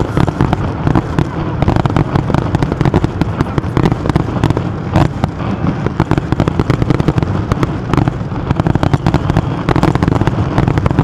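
Aerial fireworks display: a dense, continuous barrage of bangs and crackling reports, many a second, over a steady low rumble.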